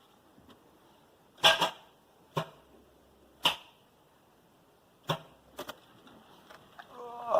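Holden VS Commodore's starting system giving sharp single clicks, about six spread over several seconds, with no engine cranking. The owner takes it for an electrical issue, a poor battery-terminal connection.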